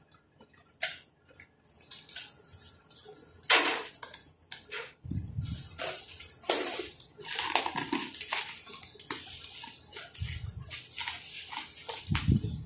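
Cardboard box being handled and its plastic shrink wrap rustling and crinkling in irregular bursts, with a sharp knock about three and a half seconds in.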